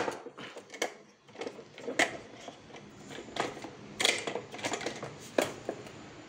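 Bosch PTC 640 manual tile cutter: a series of sharp clacks and knocks from its carriage and breaking handle, about half a dozen spaced roughly a second apart, as it is worked on a thick ribbed porcelain tile that needs hard pressing to break.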